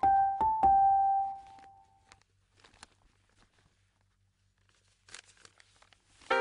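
A few soft piano notes struck one after another in the first second, ringing out and fading over about two seconds. Then it goes nearly quiet, with faint clicks and a brief rustle about five seconds in.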